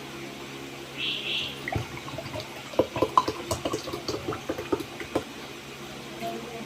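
Water poured into a glass: a brief hiss, then about three seconds of irregular glugs and splashes.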